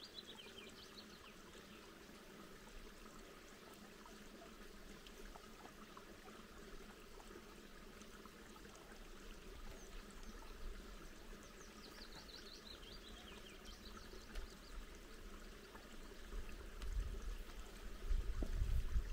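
Faint trickle of a small, stony upland stream. A songbird sings a short falling phrase twice, and wind rumbles on the microphone near the end.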